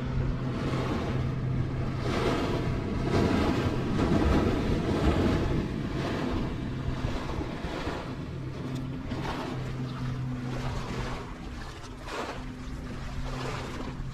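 Motorboat engine running steadily on the water. It swells louder a few seconds in and then eases off, over a rush of water noise.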